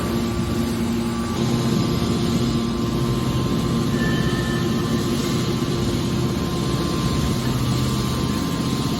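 Heavy industrial machinery running with a steady hum: a motor drone with several constant tones over a broad mechanical noise.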